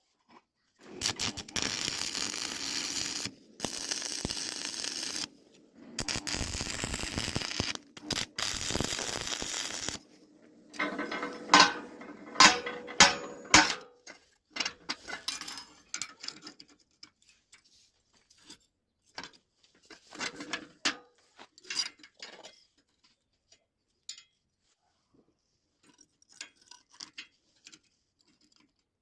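Metal workshop sounds: three bursts of harsh hissing noise, each a few seconds long, then a run of loud metal clanks and rattles, then scattered light metallic clicks and knocks.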